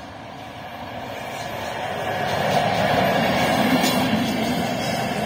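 WAG-9 electric locomotive running light, without a train, passing by: a rail rumble that builds to its loudest about three seconds in, then eases off slightly.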